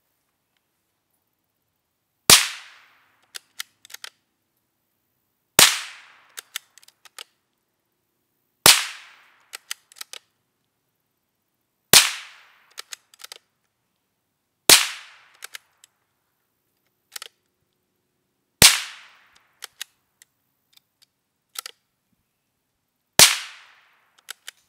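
Marlin .22 rifle fired seven times, single sharp cracks spaced about three to four and a half seconds apart, each with a brief fading tail and followed by a few small clicks.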